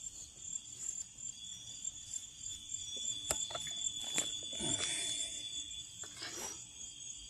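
Evening insect chorus: a steady high-pitched chirring of crickets and other insects, with a few faint clicks scattered through it.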